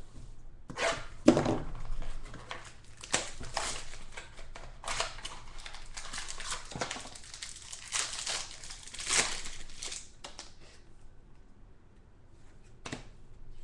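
A trading-card pack wrapper crinkling and tearing as it is worked open by hand. The rustling comes in irregular strokes for about ten seconds, then thins to a few faint clicks near the end.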